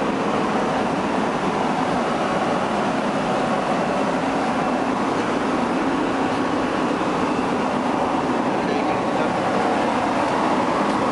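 Steady, unbroken running noise of shipboard machinery, a constant hum and hiss with a faint steady tone in it.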